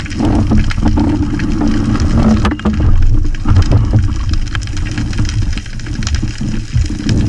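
Muffled underwater rumble heard through a waterproof camera housing, with many small clicks and knocks as a spearfisher handles speared grey mullets on the steel spear shaft.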